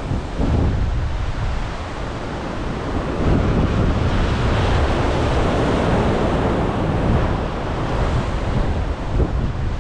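Ocean surf washing against the shore, swelling louder in the middle, with wind buffeting the microphone.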